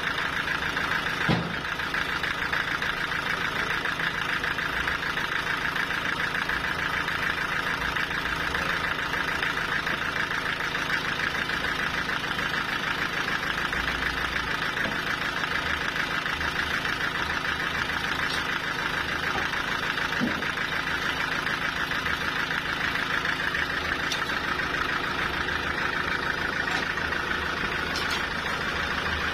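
Sawmill machinery running steadily, a continuous even mechanical drone with one brief knock about a second in.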